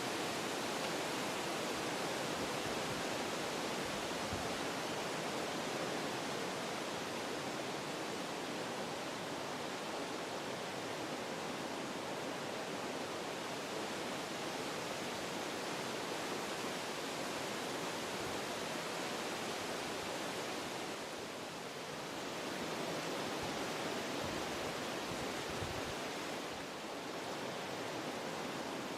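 Wind blowing through forest trees, a steady rush that eases off briefly twice in the last third.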